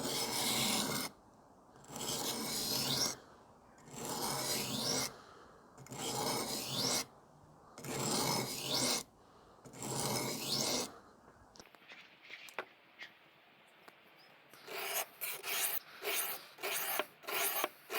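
Kitchen knife blade sliding across the coarse side of an aluminium oxide sharpening stone wetted with dishwashing liquid, grinding in a secondary bevel. Six slow strokes of about a second each, two seconds apart, then a pause with a few faint clicks and a quicker run of shorter strokes near the end.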